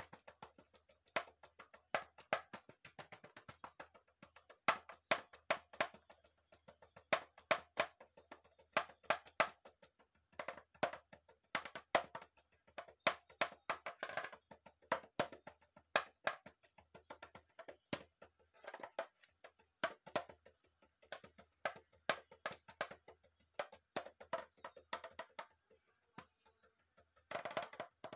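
A home-made percussion instrument made from a pink toy ball, struck in fast rhythmic runs of sharp taps. There are brief pauses between phrases, and the playing grows louder near the end.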